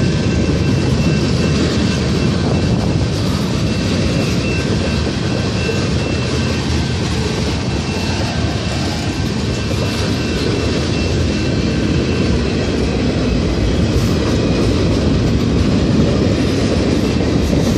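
Canadian Pacific freight train's cars rolling past at close range: a loud, steady rumble and clatter of steel wheels on the rails.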